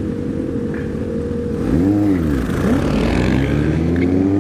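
Motorcycle engine idling, then revved once about two seconds in and pulling away, its pitch climbing steadily as it accelerates.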